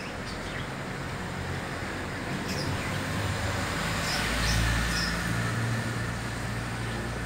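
Outdoor ambience under a stormy sky: a steady hiss with a low rumble that swells about four seconds in and eases off, and a few short bird chirps.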